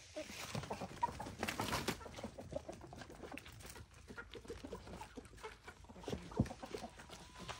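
Chickens clucking, among scattered short knocks and rustles, with one louder knock about six and a half seconds in.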